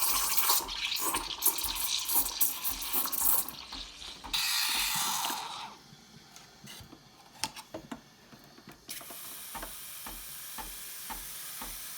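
Breville espresso machine's steam wand frothing milk: a noisy hiss with crackling for about four seconds, a smoother hiss until nearly six seconds in, then quieter with a few clicks, and a steady fainter hiss again from about nine seconds in.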